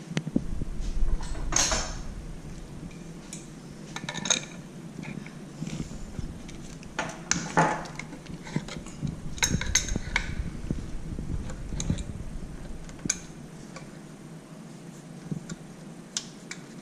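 Metal clinks, clicks and knocks of hand tools and threaded fittings as an exhaust valve is unscrewed and taken off a vacuum pump, with brief scrapes between them.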